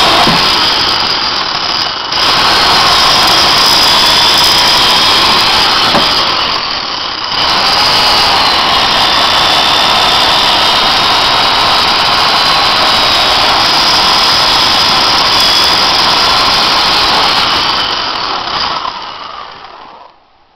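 Older Mastercraft 10-amp electric chainsaw cutting through a firewood log, its motor and chain making a loud, steady whine. It eases off briefly twice, then winds down and stops near the end.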